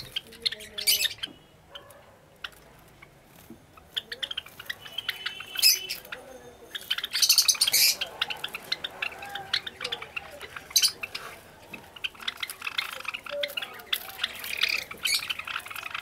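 Caged Java sparrows calling: a scatter of short, sharp chirps and clicks, with the densest burst about seven to eight seconds in and steadier chattering near the end.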